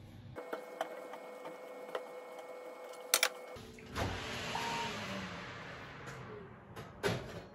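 Light clicks and a sharp metallic clink about three seconds in as banana-leaf parcels are set on a wire oven rack. Then a rushing noise that fades over about two seconds as the preheated oven's door is opened, and a few knocks near the end as the metal rack is slid into the oven.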